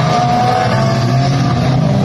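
Dirt-track mini stock race car engine running hard at speed, its note steady with slight rises and falls in pitch.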